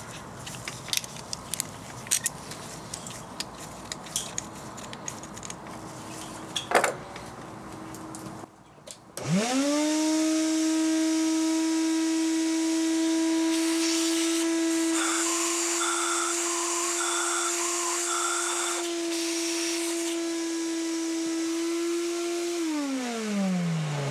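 Small scattered clicks and scrapes of hand work at the cylinder head's threaded port. About nine seconds in, a shop vacuum starts, runs with a steady whine while pulling metal shavings from the freshly tapped port, and winds down near the end.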